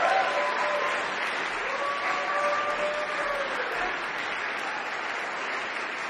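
Audience applauding steadily in a concert hall, with a few drawn-out cheers over the clapping in the first few seconds.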